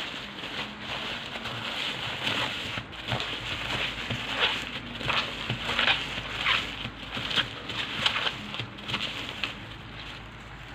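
Plastic packaging crinkling and rustling as it is handled, in an irregular run of crackles that fades out near the end.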